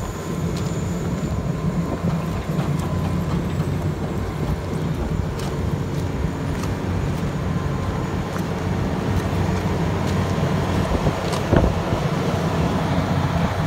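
Vögele Super 1800-2 tracked asphalt paver's diesel engine running at a steady idle, with scattered light clicks over it.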